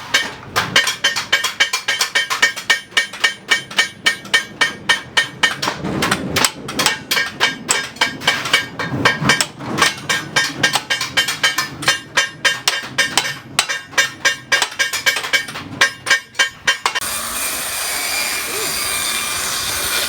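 Hammer striking metal in quick, even blows, about three a second, each with a ringing clang. Near the end the hammering stops and a steady hiss takes over.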